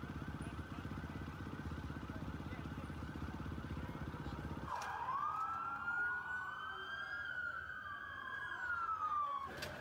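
Police sirens: a fast yelp with a deep pulsing rumble beneath it, which about halfway through gives way abruptly to slow wails rising and falling, two of them overlapping.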